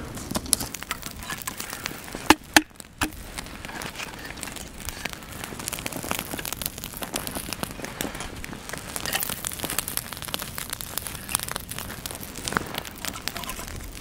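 Small campfire of conifer brushwood crackling steadily, with two sharp pops close together about two and a half seconds in.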